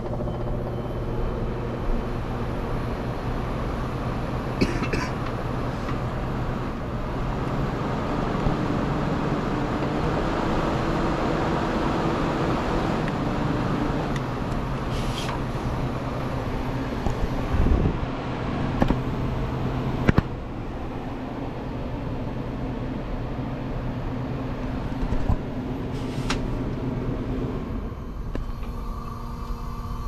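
Sears Viewsaver window air conditioner running just after being switched on: a steady rush of fan air over a low hum. A few light clicks are scattered through it, with a couple of knocks about two-thirds of the way through.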